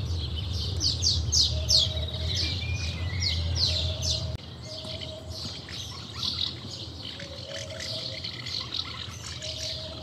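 Birds chirping, with many quick falling chirps and a short lower note repeating every second or two. A low background rumble cuts off suddenly about four seconds in.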